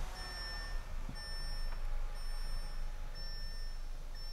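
A 2015 Audi A3's 2.0 turbocharged four-cylinder idling just after start-up, run briefly to circulate fresh oil after an oil change. Over the low engine hum, a warning chime from the car beeps about once a second.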